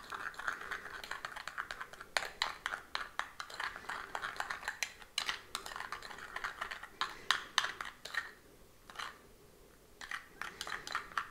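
Metal spoon stirring a thick, sticky cocoa-and-oat paste in a small ceramic bowl: rapid clicks and scrapes of the spoon against the bowl as the cocoa lumps are worked out. The stirring eases off briefly about eight seconds in, then resumes.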